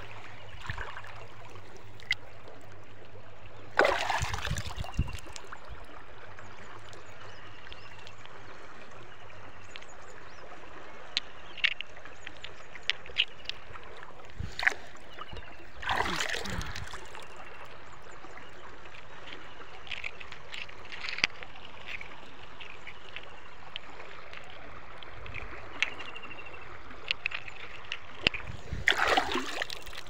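Shallow river water flowing steadily, with three louder splashes as a hand dips into the water and lifts stones out, about four seconds in, around the middle and near the end. Scattered small clicks of wet stones being handled.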